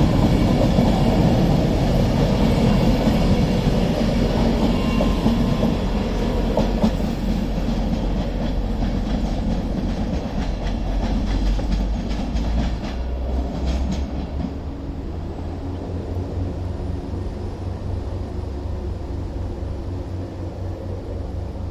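Train running through the station and pulling away, its wheels clicking over rail joints partway through, then the sound fading to a low rumble as it moves off.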